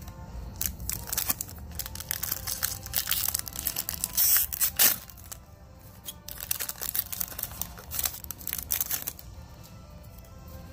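Foil wrapper of a Pokémon Trading Card Game booster pack crinkling as it is handled and torn open, the loudest tear about four seconds in, with quieter card handling near the end. Background music plays throughout.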